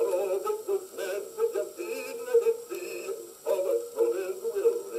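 Vocal record playing on an HMV 162 acoustic gramophone through a 3D-printed soundbox: a sung melody with accompaniment, with no bass and most of the sound in the middle range.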